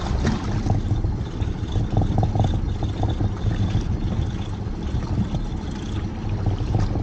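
Wind rumbling steadily on the microphone, with sea water washing against the side of a small boat.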